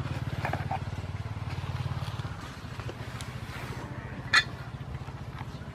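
A small engine running with a steady low, fast-pulsing rumble that fades out a little over two seconds in. Light ticks of handling throughout, and one sharp click near the end.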